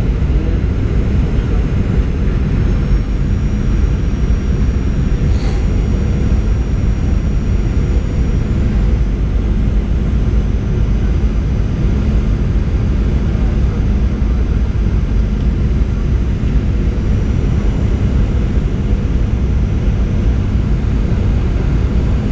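Cabin noise inside a Boeing 737-800 on final approach: the steady low rumble of its CFM56-7B turbofans and the airflow, heard at a window seat beside the engine, with a faint steady hum above it.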